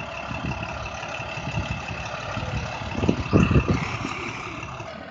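School bus engine idling, a steady rumble with a high whine over it, growing louder for a moment about three seconds in.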